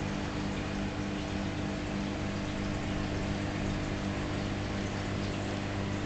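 Steady hum and water rush of a reef aquarium's pumps circulating the tank water.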